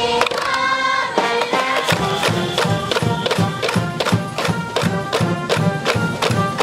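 School brass band playing a baseball cheering tune in the stands: held brass notes at first, then about two seconds in the drums come in with a steady, driving beat under the brass.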